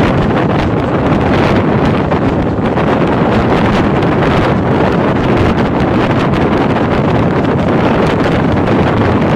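Wind rushing steadily and loudly over the microphone, held out from a moving passenger train, mixed with the train's running noise on the track.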